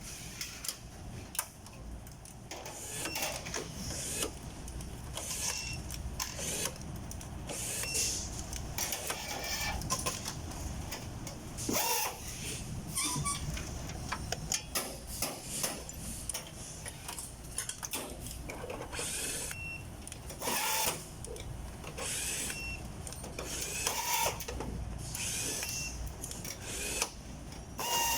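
Workshop or factory work sounds: irregular metallic clicks and clanks, some with a short ringing tone, over a steady low hum.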